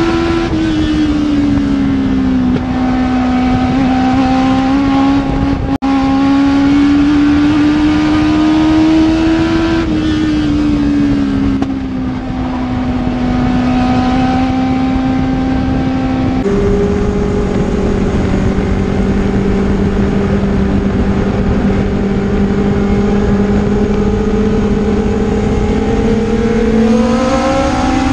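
Legend race car's Yamaha four-cylinder motorcycle engine, heard from inside the cockpit, running at part throttle under caution. Its note drops about a second in, rises slowly, dips again about ten seconds in, shifts abruptly to a different note a few seconds later, and climbs near the end as the throttle opens. One sharp click just before six seconds.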